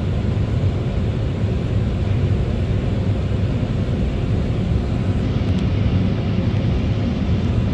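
Cabin noise inside an Embraer E190 airliner at taxi: a steady low rumble from its GE CF34 turbofan engines at low power, mixed with airframe and air-conditioning hiss.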